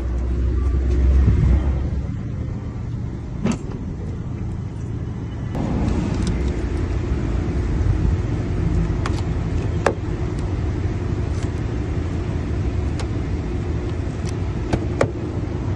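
Steady motor-vehicle noise with a low rumble that is strongest in the first two seconds, and a handful of short sharp clicks scattered through it.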